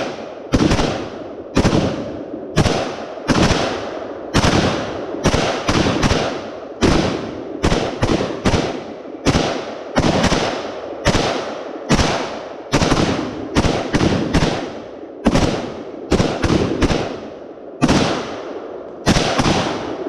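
Semi-automatic fire from a 7.62x39 AK-pattern gun: a long string of sharp shots, about two a second, uneven in spacing, with several quick pairs and triplets, each shot echoing briefly.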